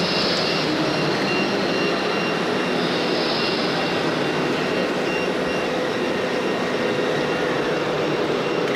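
Steady running noise of RC construction models on a course, with a repeating high electronic beep through about the first half that stops about five seconds in: a reversing warning from an RC truck's sound module.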